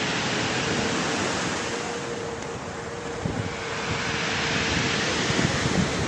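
Black Sea waves washing and breaking along the shore, a steady rushing surf that swells in the second half, with wind buffeting the microphone.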